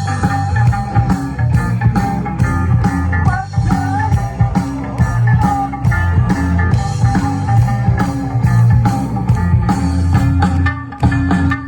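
Band playing an instrumental passage of an upbeat song: guitar over bass and drums with a steady beat.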